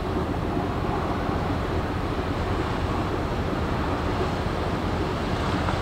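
Ro-ro passenger ferry's engines running, a steady low rumble as it manoeuvres in to berth, with wind buffeting the microphone.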